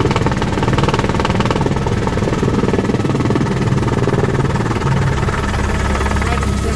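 Bell helicopter's turbine engine and main rotor running steadily in flight, heard from inside the cabin: a fast, even rotor chop over a low drone.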